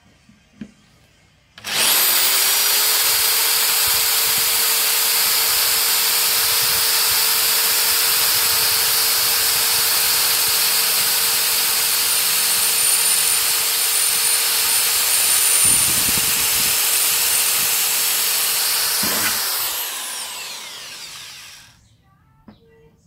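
Corded electric drill spinning up about two seconds in, then running at a steady whine for about seventeen seconds while a blunt twist bit bores through the steel front guard panel. Near the end the motor winds down and stops.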